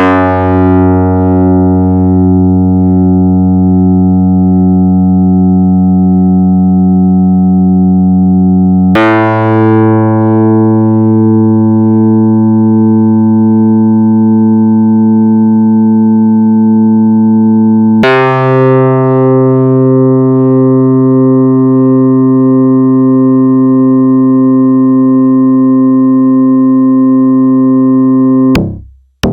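Korg EX-800 synthesizer bass patch playing three long sustained notes of about nine seconds each. Each note opens with a bright attack that fades into a steady, rich tone, and each is a little higher than the last. The third note cuts off abruptly near the end.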